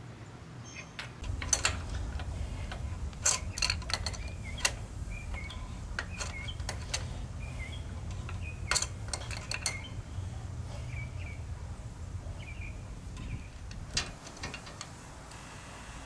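Light metallic clicks and taps of an adjustable wrench working on a newly fitted motorcycle oil pressure switch as it is tightened into the engine case. Small bird chirps are heard over a low steady rumble that stops near the end.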